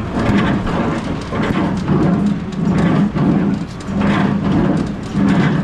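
Small square baler running empty off a tractor's PTO after a repair, its plunger and drive clattering in a steady beat about once a second over the tractor engine's drone.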